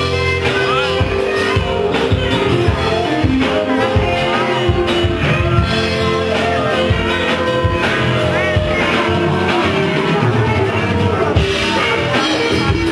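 A live band playing a rock jam: electric guitar and saxophone over drums, with short bending melodic phrases.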